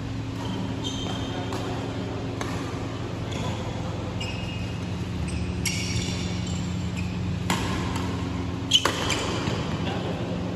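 Badminton rackets striking a shuttlecock in a doubles rally: a string of sharp hits roughly a second apart, some with a short ringing ping, the loudest just before the end. A steady low hum runs underneath.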